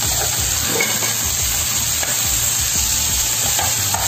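Pork ribs frying in hot oil with sautéed garlic, onion and ginger, sizzling steadily while a spatula scrapes and turns them over in the pan in irregular strokes.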